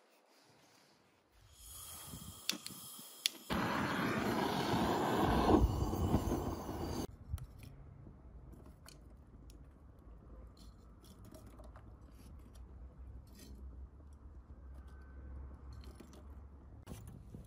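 Butane canister gas torch: gas hisses with a couple of sharp clicks, then the flame catches and runs with a loud steady hiss for about three and a half seconds before it is shut off abruptly. Afterwards, faint clicks of metal tongs turning the lit charcoal in the grill.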